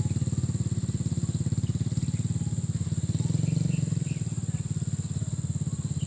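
A small engine running steadily, a low drone with a rapid, even pulse.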